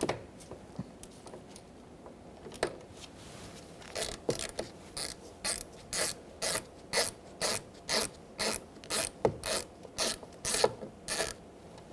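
Hand ratchet with a 6mm socket clicking in short, even bursts, about two a second, as it backs out a door-panel bolt. The clicking starts about four seconds in.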